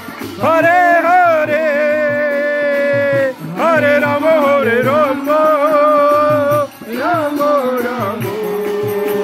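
Devotional kirtan: a voice chanting in three long sung phrases, each starting with a sliding pitch and then holding steady notes, over a steady, quick drum beat.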